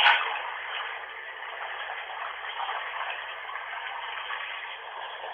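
Running bathwater from a tap: a steady, even hiss, recorded on a Nokia phone so that it sounds thin and narrow, like radio static. A brief louder burst comes right at the start.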